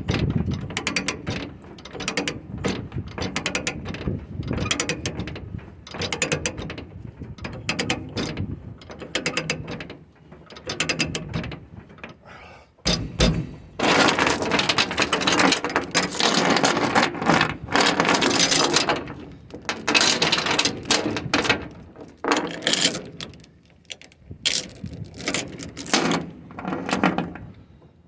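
Ratchet load binder being cranked to tighten the securement on a flatbed load, clicking in quick repeated strokes. About halfway through, longer and louder stretches of rattling noise take over.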